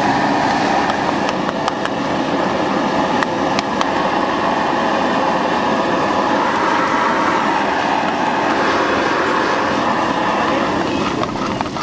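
Buffalo brain masala frying in a hot pan: a loud, steady sizzle with a few scattered sharp clicks.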